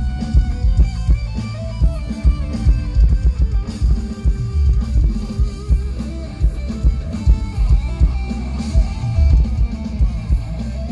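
Live band music played loud through a stage PA: electric guitar over drums with a heavy bass beat.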